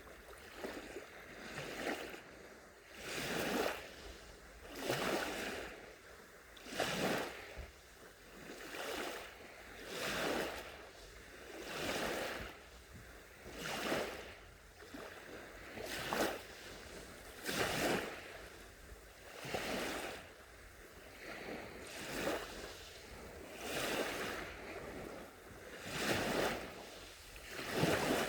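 Small sea waves lapping onto a beach, each wash swelling and fading about every two seconds in a steady rhythm.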